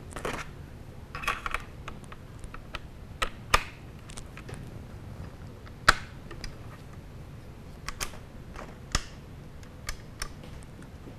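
Scattered light metallic clicks and taps from hands working an AK rifle's receiver, pressing on the freshly fitted trigger-group pins, with a few sharper clicks spaced a second or two apart.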